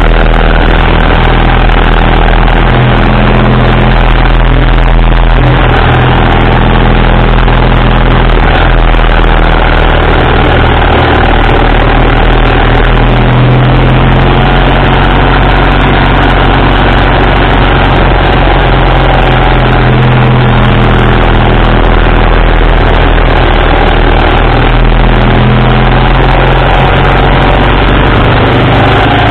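BMW R80RT's air-cooled flat-twin (boxer) engine running loud and close while riding along a road, its pitch shifting up and down several times with the throttle, under a constant rush of wind noise.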